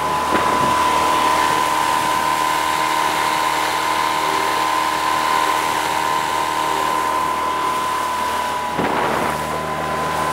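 Tohatsu outboard motor running at steady cruising speed with a high, even whine, over the rush of water along an inflatable boat's hull and wind.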